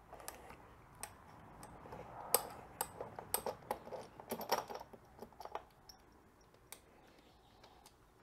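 Small metal hardware, nuts and spring washers, being handled by hand as it comes off a classic Vespa's spare wheel mount: a run of light metallic clicks and clinks, densest two to five seconds in and thinning out after that.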